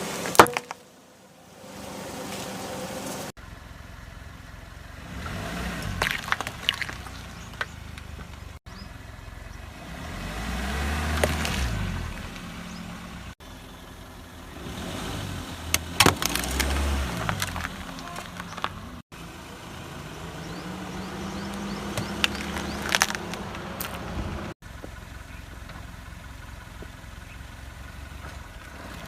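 A car rolling over objects under its tyres in several short takes, each with the low sound of the car passing and sharp cracks as things break.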